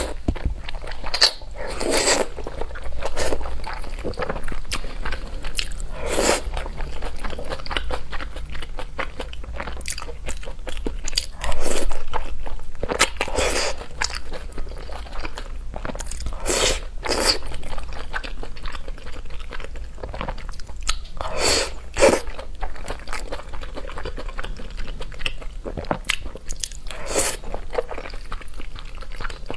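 A person chewing and biting mouthfuls of food close to the microphone, with sharp bites and wet mouth clicks at irregular intervals.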